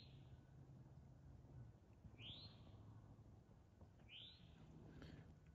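A bird calling faintly, a short rising-and-falling note repeated three times about two seconds apart.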